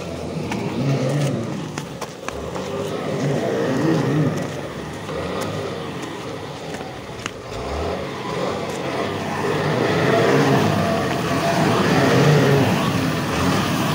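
Heavy truck's diesel engine labouring under load as it climbs a steep, muddy dirt slope, its revs rising and falling again and again. A few sharp clicks come early on.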